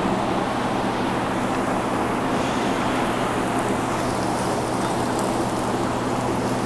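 Steady rush of circulating water with an even low hum from the pumps and filters of a recirculating aquaculture fish-tank system.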